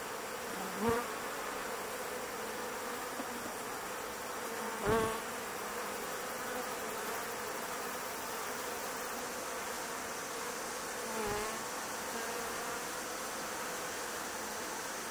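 Steady buzzing of many honeybees at a hive entrance. It swells briefly three times: about a second in, more strongly near five seconds, and more faintly about eleven seconds in.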